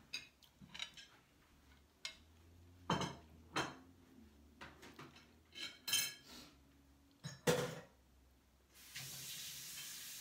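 Utensils clinking and knocking on a dinner plate: several separate sharp clinks, some with a dull thud. A steady hiss starts near the end.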